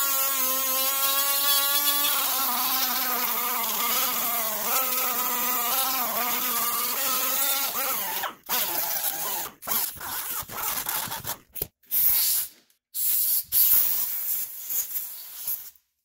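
Angle die grinder with a sanding disc running with a steady whine, its pitch wavering as the disc is pressed on the steering knuckle's rusty hub mating surface to clean it flat. About eight seconds in, the steady run gives way to short on-off bursts with gaps between them.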